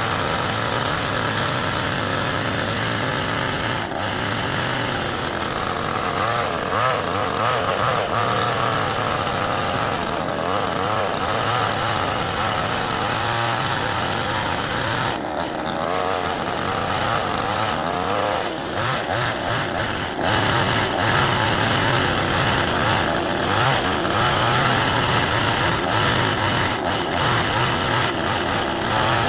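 Replica Stihl two-stroke gasoline chainsaw with a 20-inch bar running under load, cutting lengthwise along a log to slab off a plank. The engine note wavers as the cut goes and runs louder from about two-thirds of the way through.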